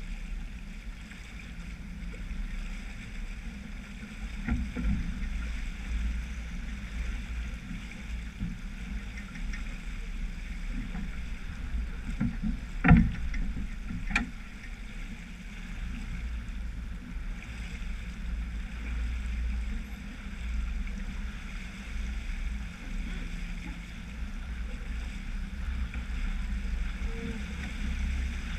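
Sailboat under sail, heeled: water rushing and foaming along the hull and wake, with wind rumbling on the microphone. About halfway through there is a sharp knock, then a lighter one a second later.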